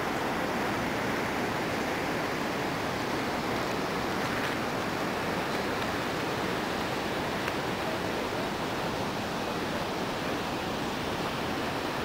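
Steady, unbroken rushing of water, an even noise that holds one level throughout.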